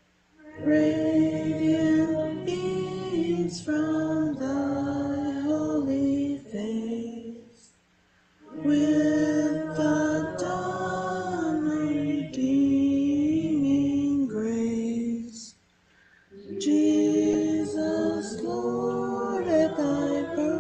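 Voices singing a Christmas carol in long phrases, broken twice by short pauses.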